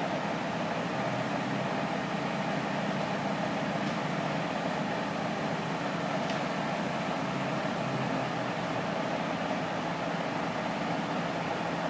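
A steady engine drone of machinery running at constant speed.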